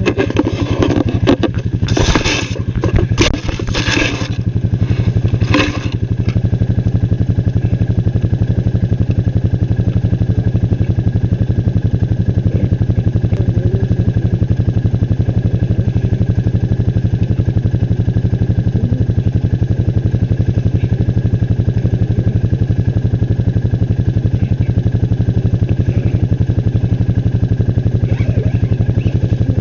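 A small engine runs steadily, a constant low drone with a fast, even pulse. For the first six seconds, loud scraping and clattering rattles sit on top of it.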